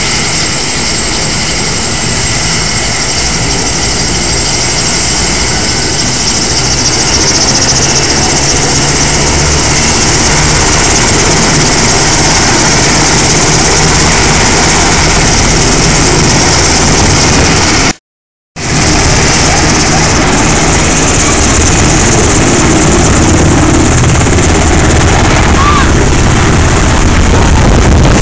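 Los Angeles County Fire Department Black Hawk-type helicopter running on the pad with its main rotor turning at power, building toward lift-off. It is a loud, steady turbine and rotor noise with a low rhythmic beat that grows louder near the end, and it cuts out for about half a second a little past the middle.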